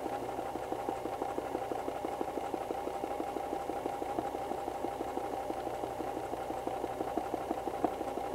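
White 1735 household sewing machine running steadily at speed, stitching a zigzag through hooped fabric in free-motion embroidery with the feed teeth lowered; a fast, even rhythm of needle strokes that does not let up.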